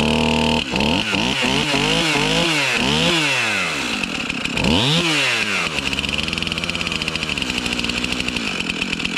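STIHL MS 271 Farm Boss two-stroke chainsaw running just after a pull start. It holds a steady, higher pitch at first, then is revved in a quick series of about six throttle blips, with one more rev about five seconds in. It then settles to a lower, even idle.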